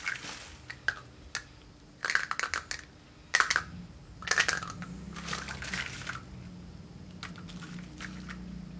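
Bubble wrap rustling and small plastic toy figures clicking against one another as hands sort through a pile of them, in short scattered bursts.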